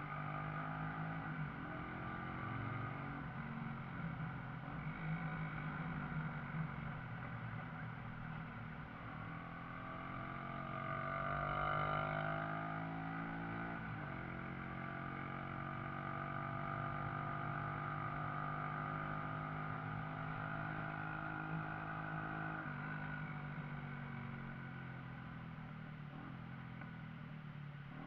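Shineray motorcycle engine running while riding, its pitch rising and falling with the throttle, loudest around the middle.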